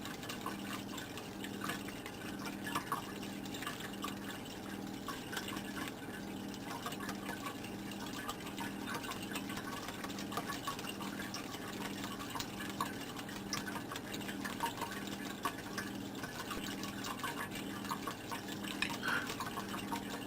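Aquarium water bubbling and trickling, with many small pops over a steady low hum that pulses in a regular beat.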